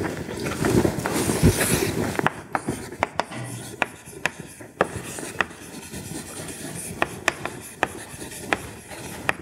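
Chalk writing on a blackboard: scratchy strokes with a dozen or so sharp, irregular taps as the chalk meets the board.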